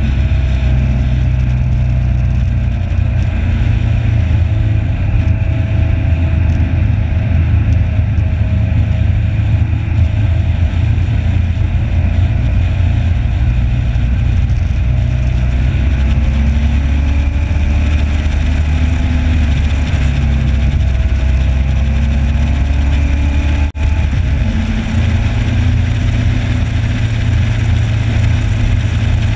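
Motorcycle engine running hard at track speed, its pitch rising and falling with the throttle and gear changes, mixed with heavy wind rush on the onboard microphone. The sound cuts out for an instant about 24 seconds in.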